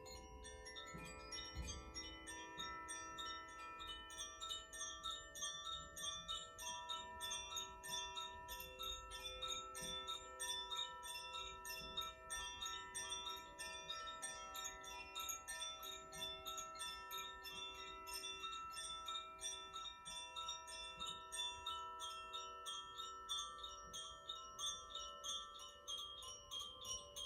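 Koshi chimes tinkling softly: quick, continuous light strikes with many overlapping tones ringing on.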